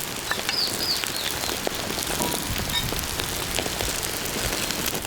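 Rain falling steadily, a dense hiss of many small drop ticks. Two or three short high chirps, likely a bird, sound about half a second to a second in.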